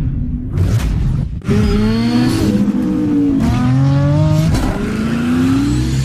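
Vehicle engine revving, its pitch rising and falling several times over a low rumble.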